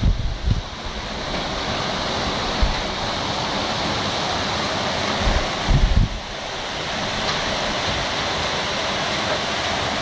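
Heavy downpour and strong wind through leafy trees: a steady rushing hiss of rain and tossing leaves. Gusts buffet the microphone in low rumbles near the start and again around the sixth second.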